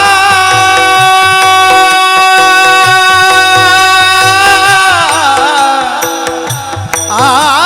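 Devotional kirtan singing: a singer holds one long melismatic note, wavering at first, then sliding down about five seconds in and starting a new wavering phrase near the end. A steady harmonium-like drone and regular hand-drum strokes accompany it.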